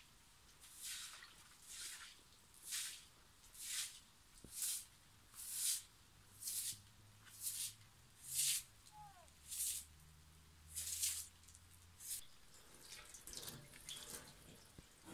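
Straw broom sweeping a wet tiled floor in even strokes, about one swish a second. Near the end the strokes give way to water from a tap splashing over the broom as it is rinsed.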